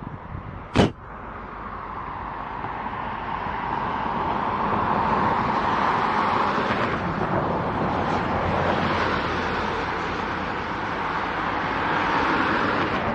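Norfolk Southern diesel locomotive approaching slowly at the head of a train, its engine working and growing louder over the first few seconds, then running steady. A single sharp knock about a second in.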